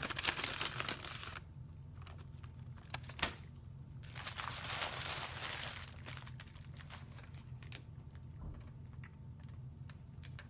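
Paper packaging crinkling and rustling as it is handled, in two stretches: the first second and a half and again about four to six seconds in, with scattered light taps and clicks between. A steady low hum runs underneath.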